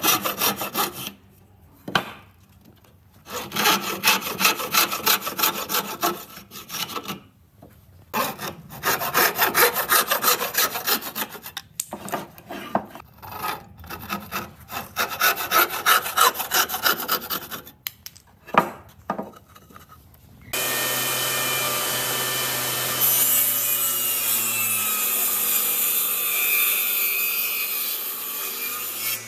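Handsaw cutting pine by hand: quick back-and-forth strokes in several bouts, with short pauses between them. About twenty seconds in, a table saw starts and runs steadily, and a pine piece is fed through its blade.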